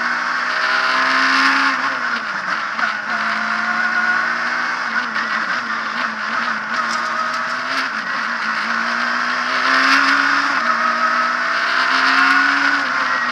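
Abarth Punto S2000 rally car's two-litre four-cylinder engine, heard from inside the cabin at stage pace. It revs up through the gears, its pitch climbing and then dropping sharply at each upshift. A few sharp clacks come through about seven to eight seconds in.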